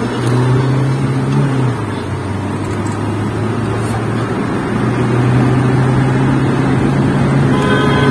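Car engine and road noise heard from inside the moving vehicle's cabin, a steady low hum. The engine note drops about two seconds in and rises again about halfway through.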